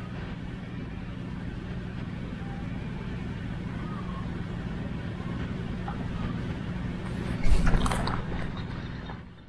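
A steady low engine drone. About seven and a half seconds in, a brief loud rush of noise comes as the angler's arm swings up past the camera.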